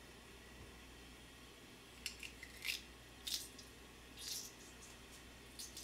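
Handheld garlic crusher being squeezed over a pot: about five short, sharp metal clicks and scrapes, starting about two seconds in.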